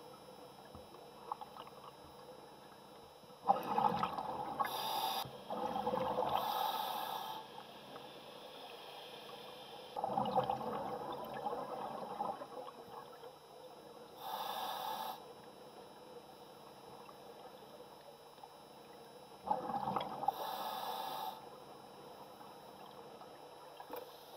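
Scuba diver breathing through a regulator underwater: several breaths, each a hiss of inhaled air and a rush of exhaled bubbles, with quiet pauses of a few seconds between them.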